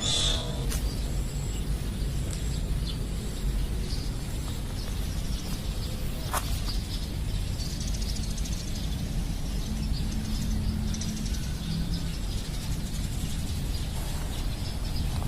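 Outdoor ambience: a steady low rumble with faint, scattered high bird chirps, and one short sharp chirp about six seconds in.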